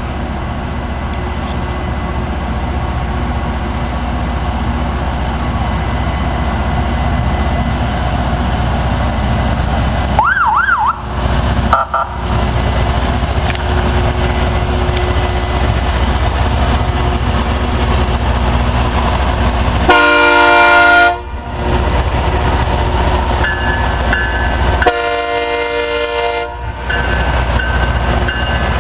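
Loram rail grinder's diesel engines running steadily and slowly getting louder as it moves off, with a brief warbling tone about ten seconds in. Its horn sounds two long blasts in the second half, and a third starts near the end.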